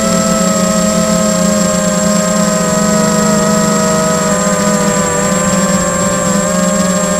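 Tarot 250 racing quadcopter's four brushless motors and propellers whining steadily in flight, heard from its onboard camera, the pitches of the separate motors drifting slightly against each other. A thin, steady high-pitched whistle runs alongside.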